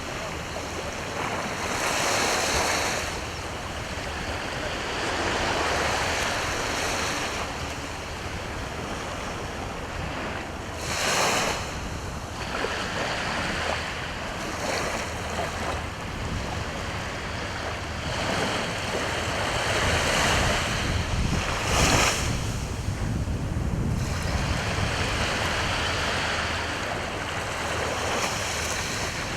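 Sea waves breaking and washing on the shore, swelling and falling every few seconds, with two sharper crashes, one near the middle and one about three quarters through. Wind rumbles on the microphone underneath.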